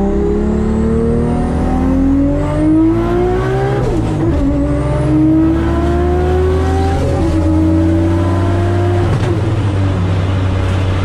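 Toyota Supra's turbocharged 2JZ inline-six at full throttle on a drag pass, heard from inside the cabin: engine pitch climbs steadily through each gear and drops with three upshifts, about four, seven and nine seconds in, over a steady low drone.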